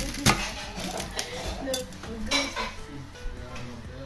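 A steel kitchen knife knocking and scraping against a metal serving tray while roast pork is cut: a loud knock just after the start, then several lighter clinks.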